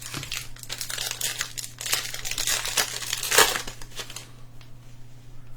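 A trading-card pack's wrapper being torn open and crinkled by hand, with a loud crackle a little past three seconds in.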